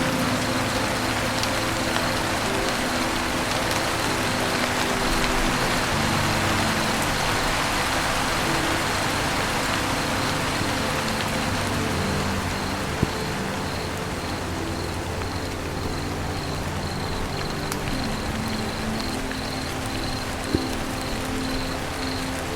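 Steady rain falling on a roof, an even hiss, over soft sustained music notes that change every few seconds. Two sharp clicks stand out, about halfway through and near the end.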